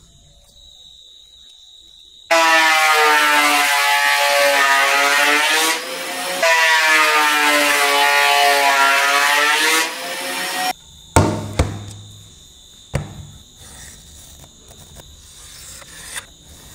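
Thickness planer running through a board: a loud whine over a rushing hiss, its pitch sagging in the middle of each pass, in two stretches with a short dip between, then cutting off suddenly. A few sharp knocks and light handling noises follow.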